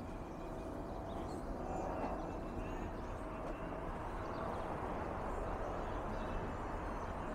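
Outdoor city ambience: a steady hum of distant traffic, with a few faint bird chirps over it.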